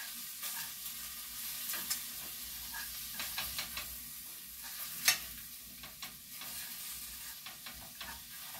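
Egg and mushrooms sizzling in a frying pan while a utensil stirs them, with light scrapes and taps on the pan. The sharpest tap comes about five seconds in.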